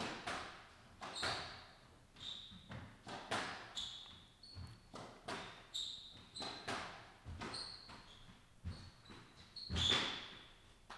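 Squash rally: the rubber ball struck by rackets and smacking off the court walls, about one or two hits a second, each echoing in the enclosed court. Between the hits come short high squeaks of court shoes on the wooden floor.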